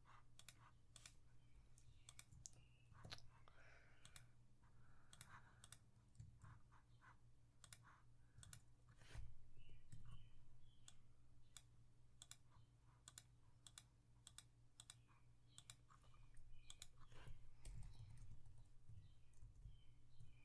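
Faint, irregular clicking of a computer mouse and keyboard, many separate clicks at an uneven pace.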